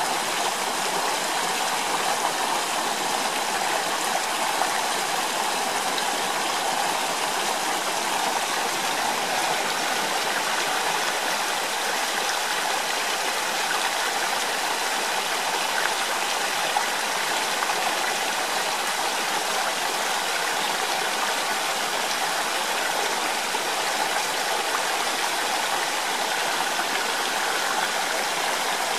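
A stream running steadily, an even rush of water that does not change.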